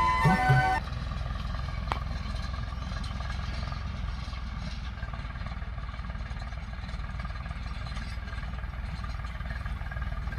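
An engine running steadily with a low rumble, after background music cuts out about a second in.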